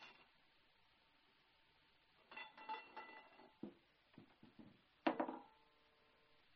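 Light metallic clinks and knocks from the heavy barrel of a Browning M2 .50 caliber machine gun as it is drawn out of the gun and laid down. About five seconds in there is a single sharp metal clank that rings briefly.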